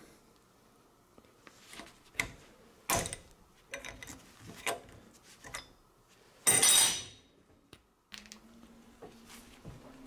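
Scattered sharp metal clinks and knocks as welded 7075 aluminium test pieces are handled and clamped in a steel bench vise, with one longer, louder clatter about six and a half seconds in.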